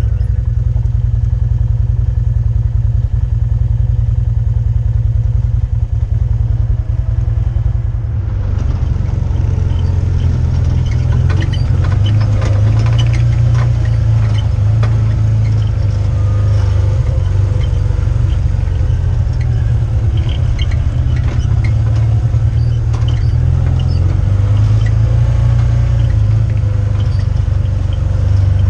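Side-by-side utility vehicle driving, its engine running with a steady low drone. From about eight seconds in come frequent light rattles and knocks.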